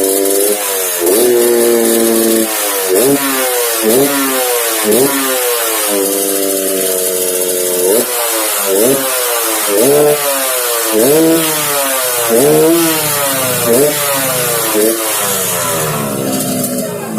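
Yamaha RX-King's single-cylinder two-stroke engine, fitted with a 'ngorok' (growling) exhaust, revved again and again in short blips, each rising sharply and dropping back.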